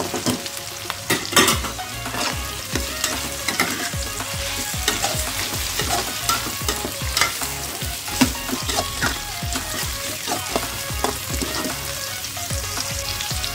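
Metal spatula stirring sliced carrots and onion in a wok of hot oil, knocking and scraping against the pan over a steady frying sizzle. There is a louder knock about a second in.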